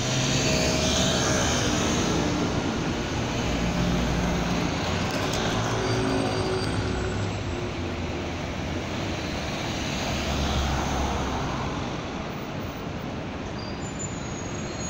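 Street traffic: cars and a city bus running along a boulevard, a steady rumble of engines and tyres.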